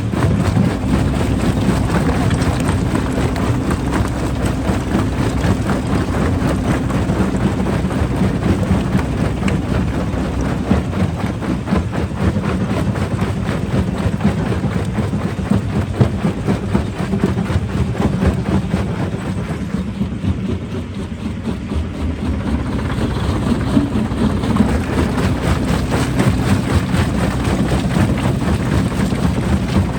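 Heavy machinery running steadily: a low diesel-like drone under a continuous gritty rattle and clatter, which eases off for a couple of seconds about two-thirds of the way through.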